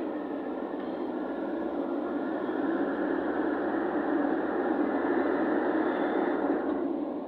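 Vehicle driving noise, a steady rush of road and engine sound. It grows slowly louder over several seconds and eases off near the end.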